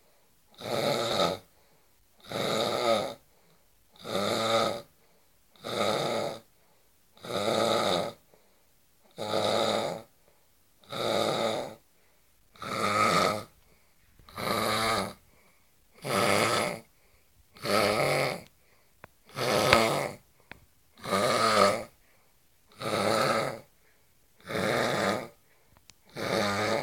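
A sleeping man snoring loudly and harshly, with a rattling, jackhammer-like snore on each breath. The snores come at an even pace, about one every 1.7 seconds, with near-quiet gaps between them.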